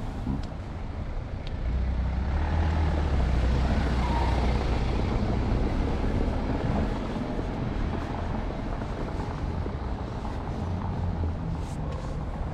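Motor vehicle engine running, a low rumble that swells about two seconds in and eases off after about seven seconds, over street traffic noise.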